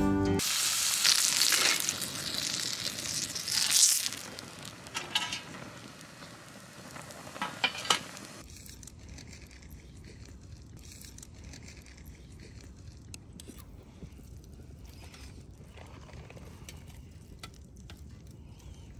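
Food sizzling in a hot pan, with a few sharp clicks of utensils on the pan. After about eight seconds it cuts suddenly to a much quieter background with faint scattered ticks and crackles.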